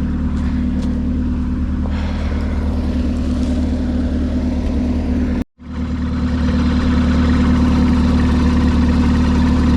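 Old Minneapolis-Moline tractor engine running steadily with a low, even drone. It drops out for a split second about five and a half seconds in, then comes back a little louder.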